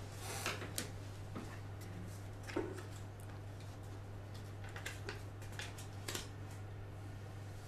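Quiet room tone with a steady low hum and scattered small clicks and rustles, the loudest a single knock about two and a half seconds in.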